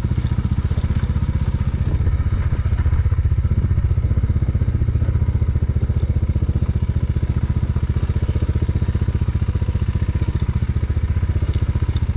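Motorcycle engine idling steadily in neutral, its exhaust pulses even and unchanging, with a few faint clicks over it.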